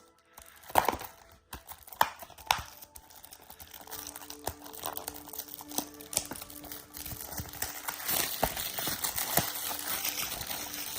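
Plastic shrink-wrap on a Blu-ray case crinkling and tearing as it is pulled off, with a few sharp clicks in the first few seconds, over faint background music.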